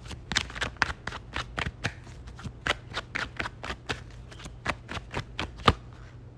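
A tarot deck being shuffled by hand: a quick run of crisp card snaps and slaps, about four a second, the loudest one near the end as the shuffling stops.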